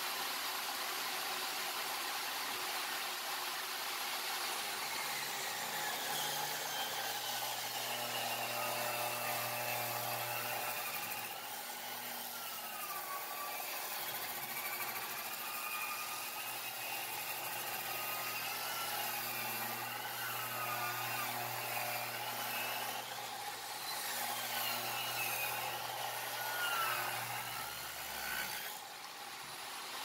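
Table saw running, its blade ripping a long board lengthwise. Once the wood is in the blade, a whine wavers up and down in pitch with the cut, then eases off near the end as the cut finishes.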